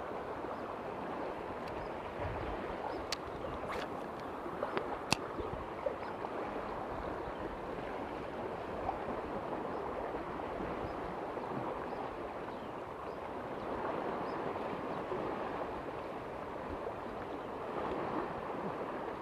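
Small sea waves lapping and sloshing steadily around a person wading in the shallows, with a few brief sharp clicks about three to five seconds in.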